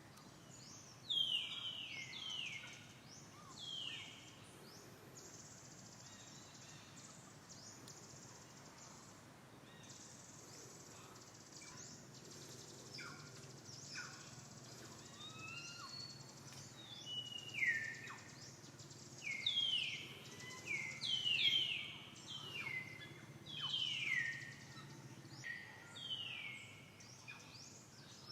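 Monkey screaming in fear: a series of short, high squeals, each falling in pitch, a few near the start and a denser run through the second half. They are the frightened calls of a female threatened by another monkey.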